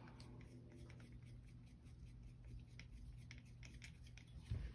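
Faint clicks and light scrapes of small helicopter parts and screws being handled at a workbench, over a low steady hum, with a soft bump near the end.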